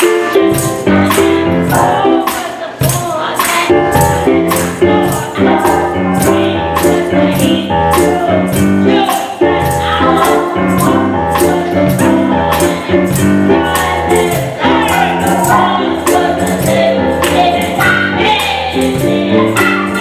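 Gospel music with singing over a steady bass line and a tambourine on the beat, about two strokes a second.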